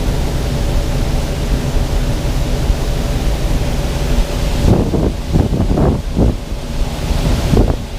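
A truck engine idles steadily under a constant rushing hiss. A few short, lower swells come about five seconds in.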